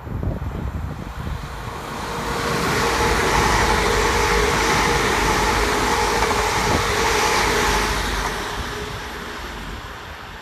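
A London Northwestern Railway Class 350 electric multiple unit, two units coupled, passing at speed: the rush of wheels on rail builds over the first couple of seconds, holds with a steady hum, then fades as the train draws away.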